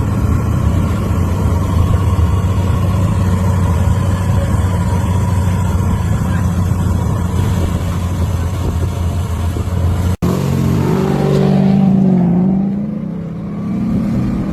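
Drift car engine running hard at high revs. About ten seconds in, the sound cuts off abruptly, and the engine is then heard revving up and down.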